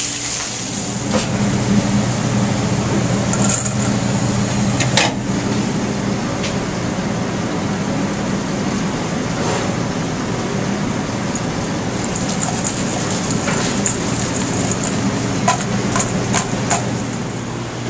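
Steady hum and rush of a commercial kitchen's gas range, with frying in a steel pan and scattered clinks of metal cookware, more of them in the second half.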